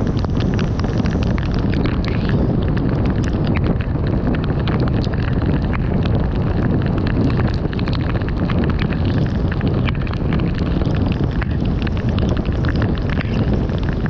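Car driving on a wet road in drizzle: steady tyre and wind noise, with many small scattered ticks.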